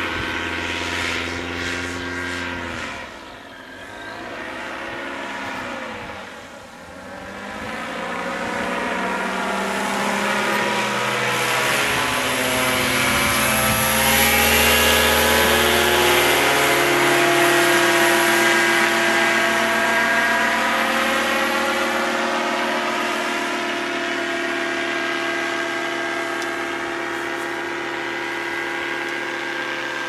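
Two-stroke paramotor engine and propeller running as it flies past overhead, dipping twice in loudness in the first several seconds, swelling to its loudest about halfway through, then slowly fading as it climbs away.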